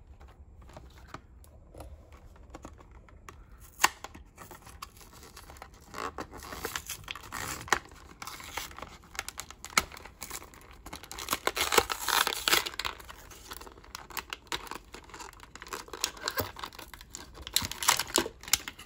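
A clear plastic blister pack being torn open from its backing card, the stiff plastic crackling and crinkling with many sharp clicks and snaps. It starts after a quiet few seconds and comes in bouts.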